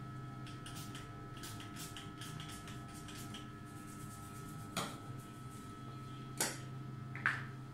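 Small plastic hair-tonic bottle being handled: a run of faint quick ticks, then three sharp clicks in the second half, over a faint steady electrical hum.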